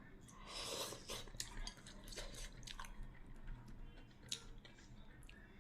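A person eating: soft chewing, with a few faint clicks of utensils on dishes.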